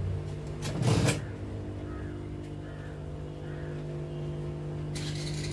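Juki industrial sewing machine's motor humming steadily, with a short loud burst about a second in and a brighter, rapid rattle starting near the end as the machine begins stitching.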